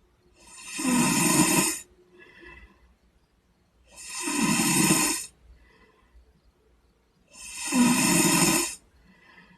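A sleeping boy snoring: three loud snores of about a second and a half each, roughly three and a half seconds apart, with a faint breath between each.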